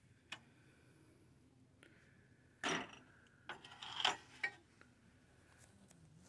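Ceramic mugs being handled on a metal shelf, knocking and clinking: one light knock near the start, a louder knock about two and a half seconds in, then a quick cluster of clinks around four seconds.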